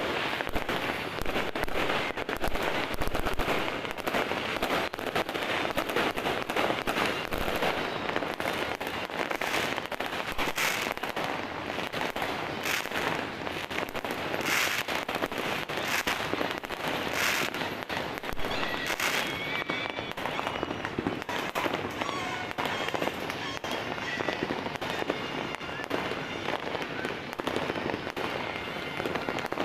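Continuous, dense popping and banging of New Year fireworks and firecrackers, with many overlapping blasts and crackles and no pause.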